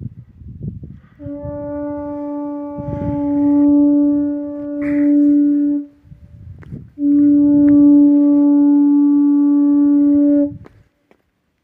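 A blown horn sounding two long held notes of the same pitch, each a few seconds long, with a short break between them. The first note swells and dips; the second is louder and steady, and it cuts off sharply.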